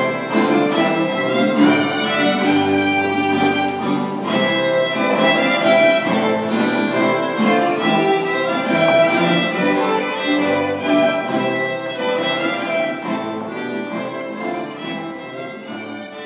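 Baroque ensemble playing a dance tune, with bowed strings to the fore, gradually fading out near the end.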